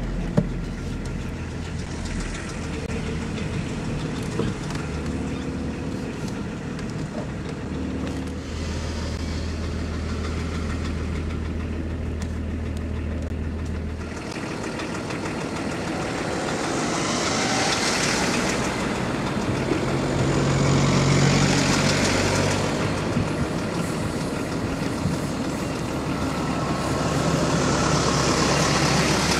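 A car engine runs at a steady low hum, heard from inside the cabin. About halfway through, the sound changes to louder road and engine noise from vehicles moving past, swelling and fading three times.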